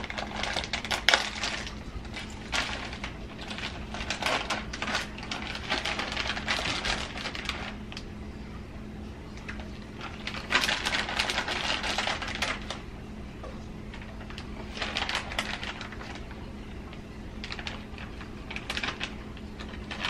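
A plastic bag of shredded cheese crinkling and rustling as cheese is shaken out of it over a lasagna layer, in several spells of fine crackle. A faint steady hum underneath.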